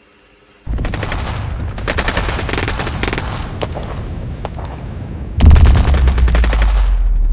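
Rapid, sustained automatic-style gunfire that starts suddenly less than a second in, with many shots in quick succession; about five and a half seconds in it grows louder and heavier, with a deep rumble under the shots.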